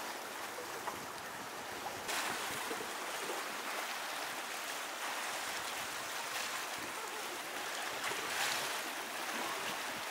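Sea surf washing on the shore, a steady rush that grows louder about two seconds in and swells again near the end.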